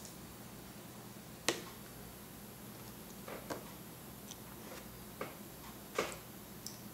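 Irregular sharp taps and clicks, about half a dozen, of a toddler's fingers on a plastic high-chair tray as he picks up bits of food, over a faint steady low hum.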